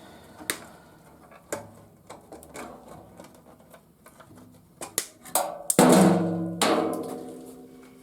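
Light clicks and taps of parts being handled, then a steel part of the garage door opener clanging down twice about six seconds in, ringing and slowly fading.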